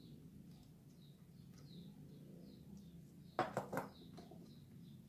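Faint high chirps repeating about three a second over a low hum, broken about three and a half seconds in by a short clatter of two or three sharp knocks as something is set down on the workbench.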